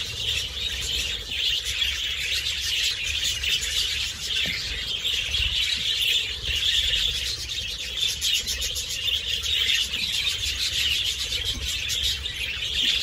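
A large flock of budgerigars chattering together: a continuous dense din of many overlapping high chirps and warbles.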